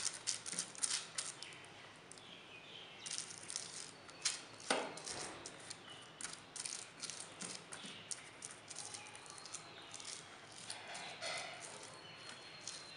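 Faint scratchy rustling of a silicone pastry brush spreading oil over butter paper in a metal cake tin, in many quick, irregular strokes.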